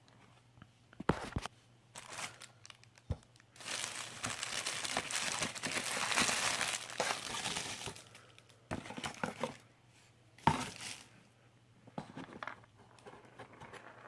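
Packing material being crinkled and torn open during an unboxing, with a long stretch of crinkling for about four seconds in the middle and a few sharp knocks of handled items.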